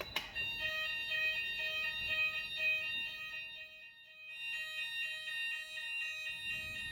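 A click as the test key goes into the manual call point, then the fire alarm sounders go off in a pulsing tone, about three pulses a second, which drops out briefly about halfway through.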